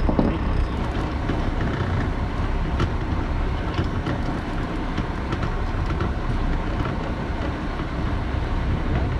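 Steady low rumble of a fishing boat's engine running, with a few light clicks over it.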